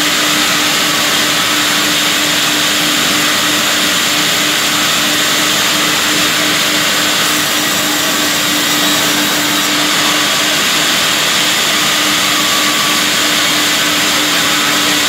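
Vertical band saw for round logs running steadily while cutting a log fed along its carriage: an even hiss with a constant low hum underneath.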